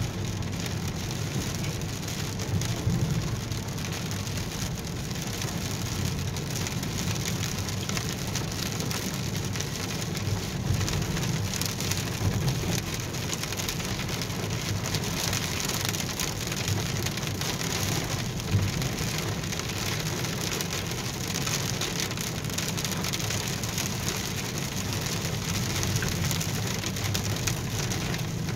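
Rain falling steadily on a car's windshield, heard from inside the car as an even patter of many small drop taps over a low steady rumble.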